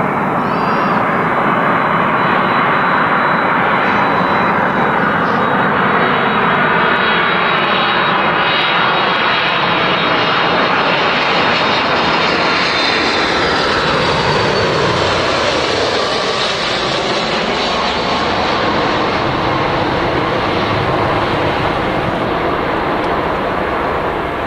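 Boeing 767-300ER airliner's twin turbofan engines at approach thrust on final approach, a loud jet rush with a whining tone that drops in pitch as the aircraft passes, easing slightly as it flares over the runway.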